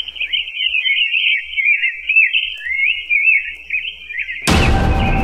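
A high, warbling whistle-like tone that glides up and down without a break for about four seconds. About four and a half seconds in, music cuts in abruptly with a sudden hit.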